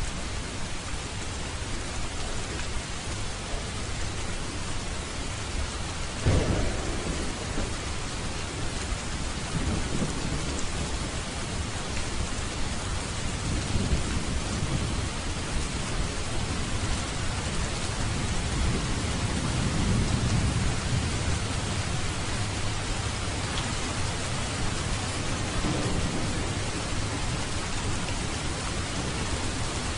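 Steady rain with thunder: a sudden clap about six seconds in, then several low rumbles that swell and fade, the longest around twenty seconds in.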